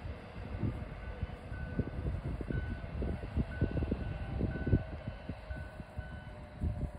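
HŽPP 6112 electric multiple unit running away into the distance: a low rumble broken by irregular low thumps. A faint high ding repeats about twice a second through the middle.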